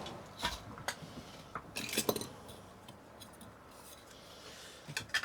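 Small hard objects being handled: a few light clicks and clinks, with a cluster about two seconds in.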